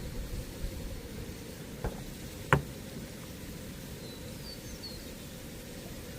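Two sharp knocks about two seconds in, the second much louder, over a steady low rumble, with a few faint high chirps near the end.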